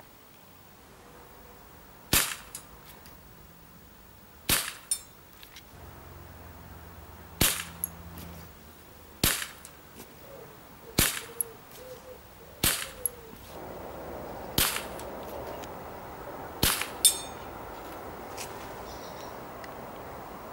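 Beeman P3 (Weihrauch HW40) precharged single-stroke air pistol in 5.5 mm fired eight times, a sharp pop about every two seconds. Several shots are followed a fraction of a second later by a second click.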